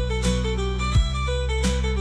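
Background music: a plucked-guitar melody over a steady bass, with a strong beat about once a second.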